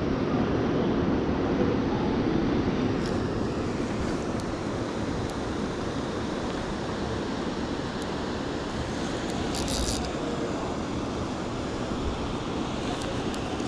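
Steady rush of river water, an even noise with no break, with a short high rasp about ten seconds in.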